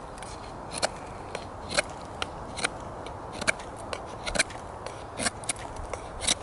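A knife blade scraping and shaving bark off a wooden stick in short, sharp strokes, about ten of them, unevenly spaced.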